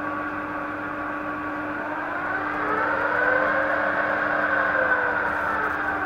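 Alzmetall AB 4 SV pillar drill running: its motor and spindle drive give a steady hum and whine, with a second tone that rises and then falls in pitch for a few seconds in the middle.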